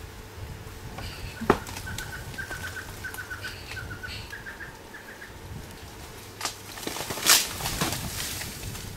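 A bird calling in a quick run of short, repeated chirps on one pitch, followed by two sharp crackling bursts about six and a half and seven seconds in, the second one the loudest sound.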